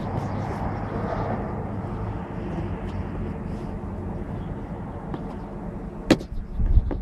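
Steady low hum and hiss inside a minivan's cabin, with a sharp click about six seconds in and a couple of low thumps just after.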